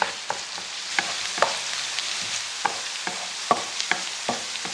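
Finely chopped onions frying in oil in a pan: a steady sizzle broken by frequent irregular pops and crackles as they brown.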